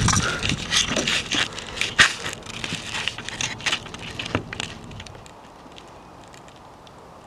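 Irregular crunching and crackling, loudest near the start, dying away about five seconds in to a faint steady background.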